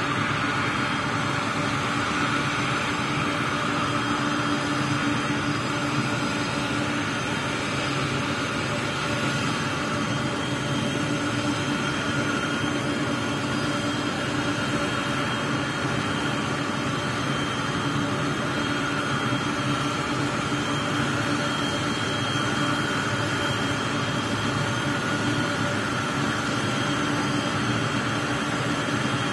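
Jet airliner engines running at idle: a steady rushing noise with a few constant whining tones.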